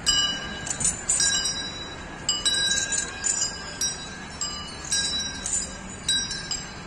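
Metal bells on walking elephants ringing as they swing, an uneven clang about every half second with a high ring lingering between strikes.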